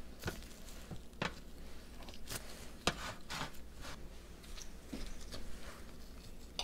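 Irregular knocks and light scrapes of hand food preparation with kitchen utensils, the sharpest knock about three seconds in.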